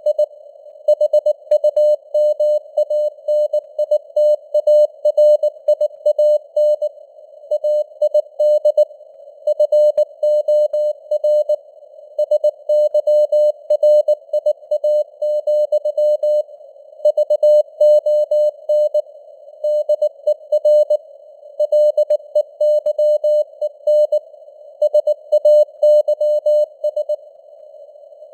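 Morse code at 19 words per minute: a single mid-pitched tone keyed on and off in dots and dashes, with short pauses between words. It sounds over a narrow hiss of simulated radio noise, and the signal strength varies (QSB).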